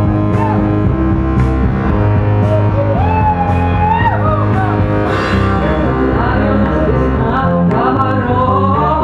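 A live rock band playing loudly, with a melody line sliding up and down in pitch over a steady low bass.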